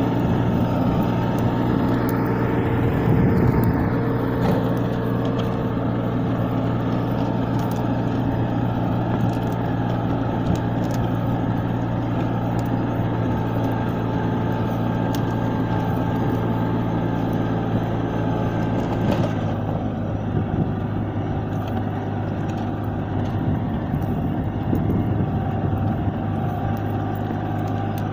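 Captain 28 HP compact tractor's diesel engine running steadily under load while pulling a disc plough through the soil.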